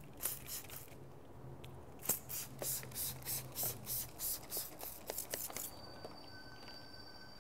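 Hand trigger spray bottle squirting tack solution under paint protection film: two short squirts, then a run of about a dozen quick squirts, roughly three a second.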